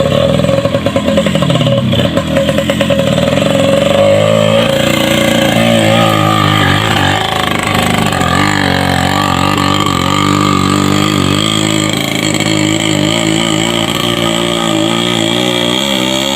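Motorcycle engine running hard and revving, its pitch sweeping up and down in the first few seconds and then holding steadier.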